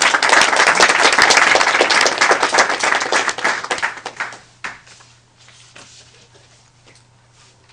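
Audience applauding, many hands clapping at once. The applause dies away about four seconds in.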